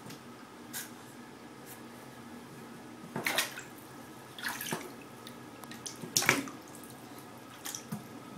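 Bathwater splashing in a few short bursts as a baby moves about in the tub, the loudest about three and six seconds in.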